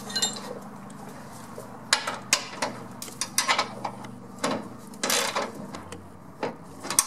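Metal hand tools clicking and clinking irregularly against steel nuts and bolts, with short clusters of clicks, as a front suspension control arm's fasteners are tightened by hand.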